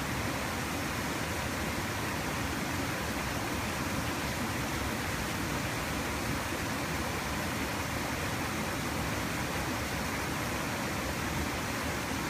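Stream water flowing steadily, an even, unbroken rush of running water.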